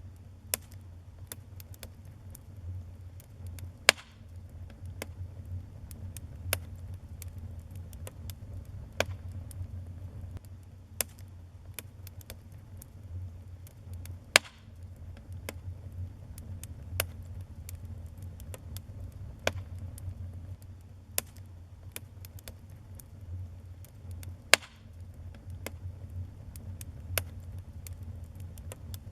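Wood fire in a fireplace crackling: a steady low rumble of flames under many small snaps, with three louder pops about ten seconds apart.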